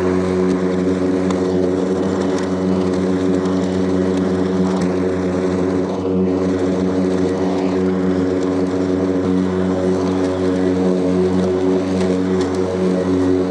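Makita cordless battery lawnmower running, its blade motor giving a steady, even hum while it mulches grass.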